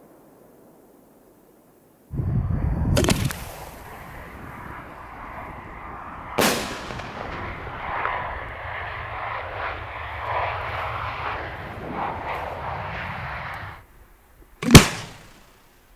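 Homemade aerial firework shells: a deep boom about two seconds in with sharp cracks, then several seconds of steady hissing noise broken by another crack, which stops abruptly. Near the end comes a single sharp bang, the loudest sound.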